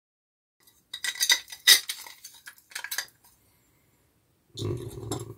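Light clinks and rattles as aluminium drill shavings are brushed and tapped off a freshly drilled 1590B pedal enclosure, lasting about two seconds from a second in. Near the end comes a short, duller knock.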